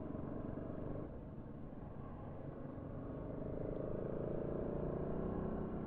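Bajaj Pulsar NS200's single-cylinder engine running while the bike is ridden, getting a little louder and more tonal about halfway through.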